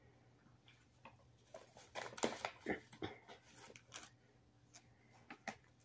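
Plastic mailer package being handled and opened: faint scattered rustles and crinkles starting about a second and a half in.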